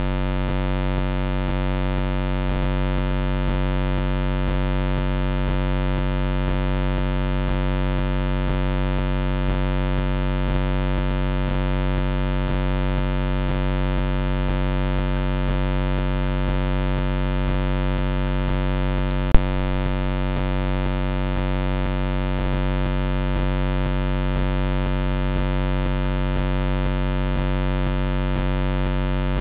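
Steady electrical buzz with many even overtones, the trail camera's own recording noise. It covers any sound of the leopard feeding. A single sharp click comes about two-thirds of the way through.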